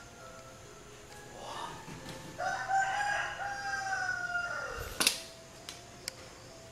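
A rooster crowing once: one long call that rises in, holds and falls away at the end. About five seconds in there is a sharp click.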